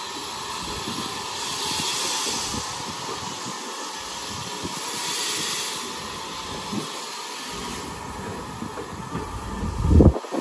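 Steam train hissing steam over a low rumble, the hiss swelling and fading twice; a thump near the end.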